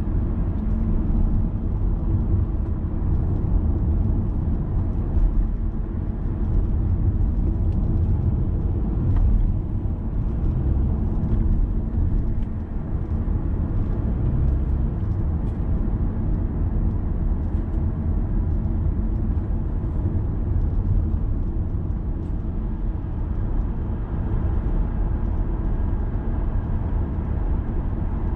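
Steady low rumble of a car driving in city traffic, heard from inside the cabin: engine and tyre noise, with a few faint clicks.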